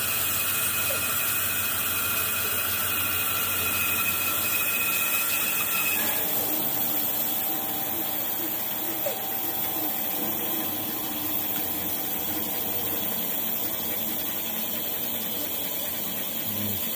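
Band saw running while resawing a log on a sled, the blade cutting through the wood with a steady high whine. About six seconds in the whine stops abruptly and the saw runs on, with the slab cut free.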